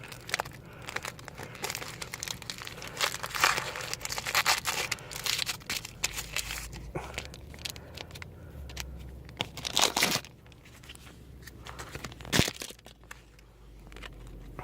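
Crinkling and rustling of trading-card packaging and cards being handled, with dense rustling over the first six seconds and a couple of sharper, louder crackles about ten and twelve seconds in.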